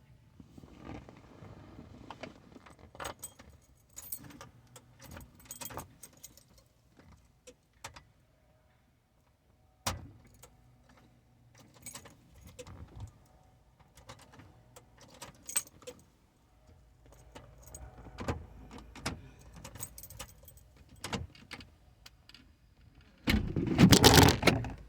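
Keys jangling and clicking in scattered short bursts, then a loud rough noise lasting about a second and a half near the end.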